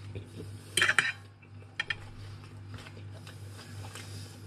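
Metal fork clinking and scraping on a ceramic dinner plate: a loud clink about a second in and two lighter ones near two seconds, over a steady low hum.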